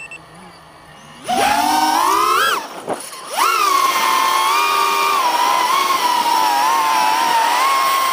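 Brushless motors and propellers of a Holybro Kopis Mini FPV quadcopter, heard from the camera mounted on it: a quiet hum, then about a second in the throttle comes up in a rising whine, drops briefly around three seconds in, and comes back as a loud, steady whine that wavers in pitch as the quad flies.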